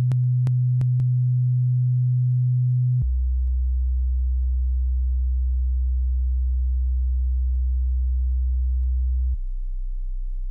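Television test-card test tone: a steady low sine tone that steps down in pitch twice, about three seconds in and again near the end. A few faint ticks come in the first second.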